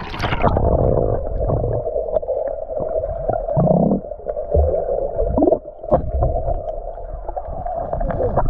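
Rushing stream water sloshing and gurgling close to the microphone, heard muffled with irregular low rumbles, as when the microphone is at or just under the water's surface.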